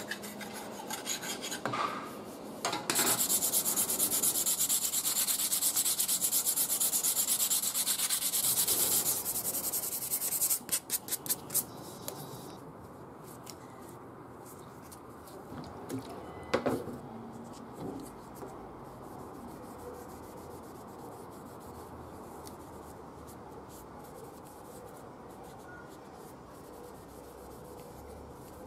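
Birch-wood knife handle being abraded with fast back-and-forth strokes, a dense rasping that slows into a few separate strokes. Then a cloth rag rubs oil into the handle, much quieter and steady, with a couple of light knocks.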